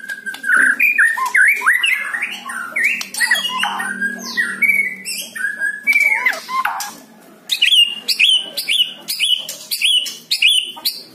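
White-rumped shama (murai batu) singing: a run of varied, gliding whistled phrases, a short pause about seven seconds in, then a quick series of repeated alike notes at about three a second.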